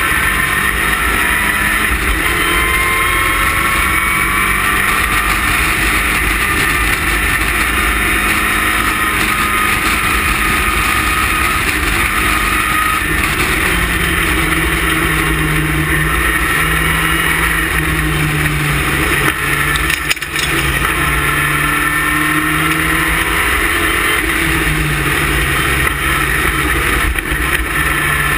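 Westfield race car's engine running hard at racing speed, heard from its open cockpit over a heavy rushing noise. The engine note slowly climbs, then steps back down, with a short dip about twenty seconds in.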